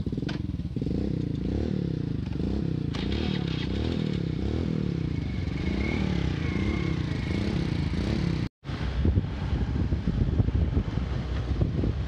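Small motorcycle engine running while being ridden, its note rising and falling with the throttle. After a brief break about eight and a half seconds in, it becomes rougher and more uneven, with rattling from riding over a dirt track.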